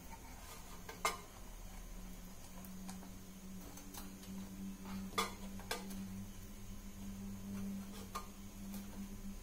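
Scattered light clicks and taps, about five, as wiring and small components are handled and pressed into the metal housing of a floodlight, over a faint steady low hum.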